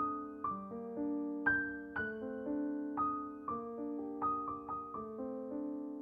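Background music of slow piano notes, each struck and left to ring and fade, about one or two a second, the last one dying away near the end.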